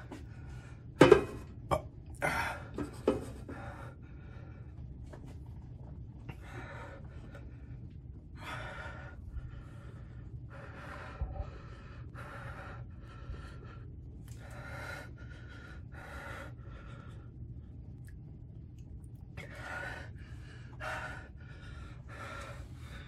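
A man breathing hard through the burn of extremely hot pepper jerky: a few loud, sharp gasps in the first three seconds, then a string of heavy breaths in and out every second or two.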